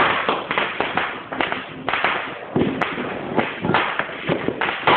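Firecrackers going off at close range: a rapid, irregular run of loud bangs and crackles, several a second.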